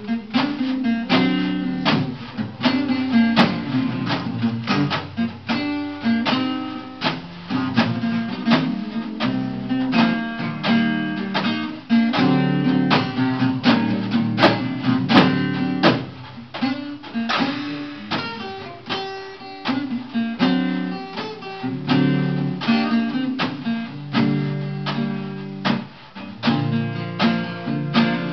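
Acoustic guitar strummed and picked through an instrumental break, with a small drum and cymbal played with sticks keeping time alongside.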